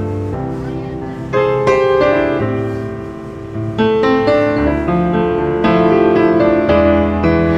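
Piano music playing: several notes held together, with fresh notes struck more loudly about one and a half and four seconds in.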